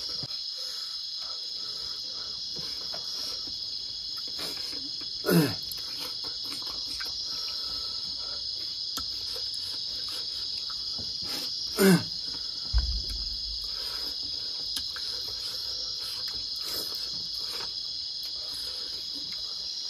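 Steady chorus of crickets chirring. Two brief sounds slide down in pitch about five and twelve seconds in, and a low thump comes just after the second.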